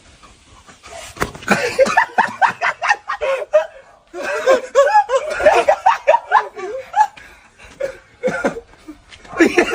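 People laughing hard in bouts, starting about a second in, with a short lull before the laughter picks up again near the end.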